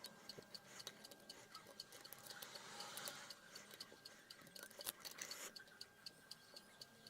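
Near silence with faint, quick, evenly spaced ticking, several ticks a second.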